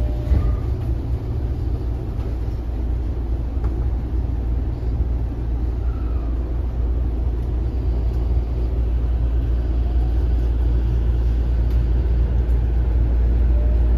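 Tokyo Metro 05 series electric commuter train heard from inside the carriage as it pulls away and gathers speed. A steady low rumble grows slowly louder, and a faint rising motor whine comes in near the end.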